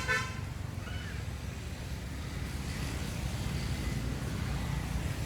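Steady low rumble of wind on the microphone, with a short high-pitched call right at the start and a brief rising chirp about a second in.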